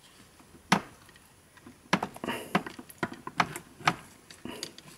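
Light clicks and taps of plastic parts as the opened JBL Go 2 speaker's housing and internals are handled: one sharp click near the start, then a run of quick, irregular clicks from about two seconds in.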